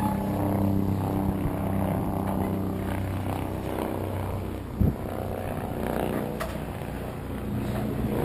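Steady engine drone with a low hum, easing off a little in the second half, and one short knock about five seconds in.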